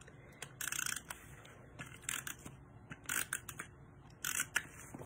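Adhesive tape runner drawn in several short strokes along the back of a cardstock panel, each stroke a quick rasping, clicking run.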